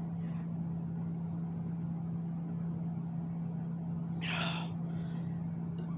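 A steady low hum, with a short breathy exhale about four seconds in.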